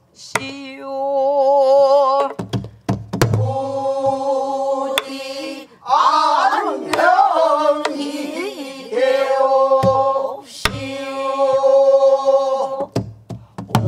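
Pansori singing: long, wavering held notes that slide between pitches, punctuated by a few sharp strokes on a buk barrel drum struck with a stick.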